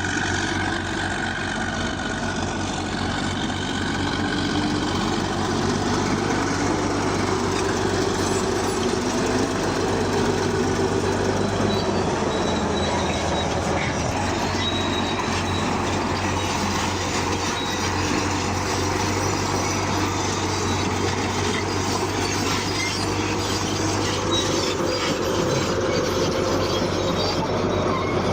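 Bulldozer working, with a steady low engine drone under the squealing and clanking of its steel tracks.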